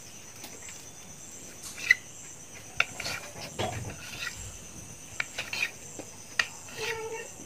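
Kitchen knife chopping down through a soft dough log onto a stone countertop, giving a series of sharp, separate taps. Crickets chirp steadily in the background.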